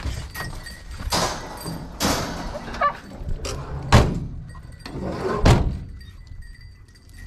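Footsteps crunching through dry scrub, with about four louder sharp cracks and thuds among a softer rustle.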